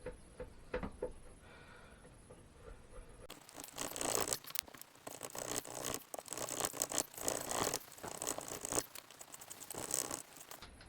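A hand tool cutting a rabbet into a wooden board: after a few light taps, repeated uneven scraping and rasping strokes start about three seconds in and stop shortly before the end.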